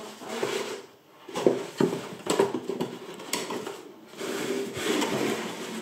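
Cardboard box with foam packing inserts being handled: rubbing and scraping of cardboard, with several sharp taps and knocks as the flaps are moved.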